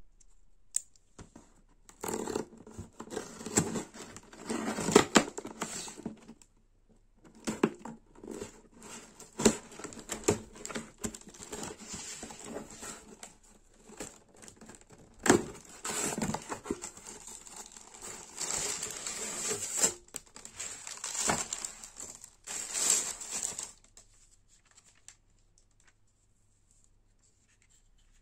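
Cardboard box being unpacked by hand: a small pocket knife slits the packing tape, and cardboard and packing are torn, scraped and crumpled in irregular bursts. It goes quieter about four seconds before the end.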